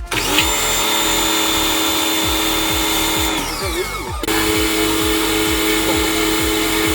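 Background music with a steady beat. Over it, a loud sustained whirring tone winds down in pitch about three and a half seconds in, then starts again abruptly a second later.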